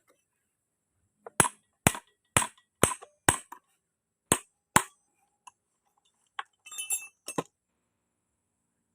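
Metal tapping on metal: seven sharp knocks at about two a second, then a short clinking of small metal pieces and one last knock near the end.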